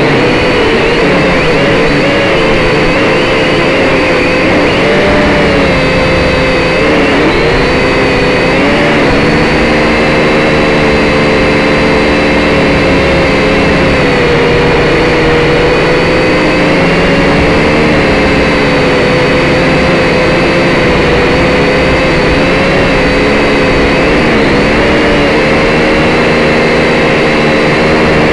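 Syma X5C quadcopter's four small electric motors and propellers whining steadily, heard up close from its onboard camera. The pitch wavers and dips briefly a few times as the throttle changes, about a quarter of the way in and again near the end.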